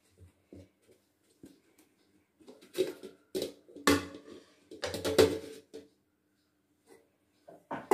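A steel cake mould knocking and clattering against a melamine plate as it is turned over onto the plate to release a steamed cake: several sharp knocks from about three to five and a half seconds in, and another near the end.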